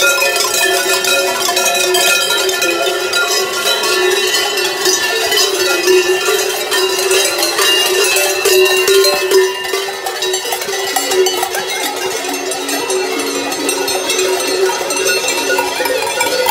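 Many cowbells clanging together without pause, worn by masked carnival figures as they walk, their ringing tones overlapping. A lower-pitched bell joins in about two-thirds of the way through.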